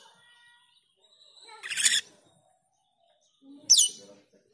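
Asian glossy starling giving two short, sharp calls between pauses: a harsh call a little under two seconds in, and a high call near the end that sweeps quickly downward in pitch.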